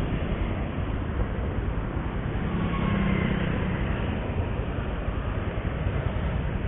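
Motorcycle ride noise through an action camera's microphone: steady wind rumble and engine and road noise in city traffic, with a brief low hum about three seconds in.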